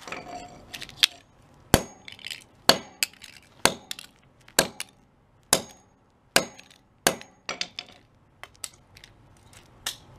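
A hammer striking the small parts of a broken-down Bluetooth speaker on concrete: about a dozen sharp blows, roughly one a second, with lighter knocks between.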